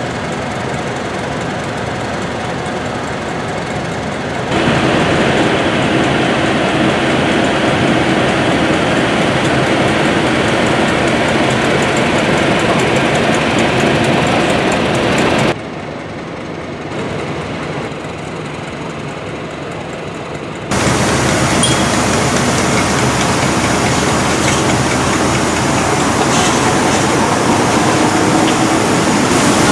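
Class 31 diesel-electric locomotive's English Electric V12 engine running steadily, louder from about four seconds in. After a quieter stretch, a steady hiss of steam from Austerity 0-6-0ST saddle tank steam locomotive WD132 in the last third.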